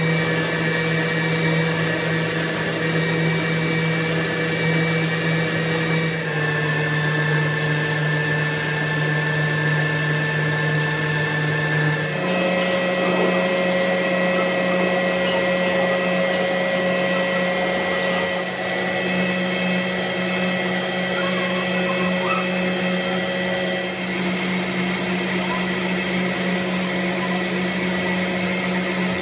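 A workshop machine's electric motor running with a steady hum and whine, its pitch jumping suddenly to a new steady note a few times.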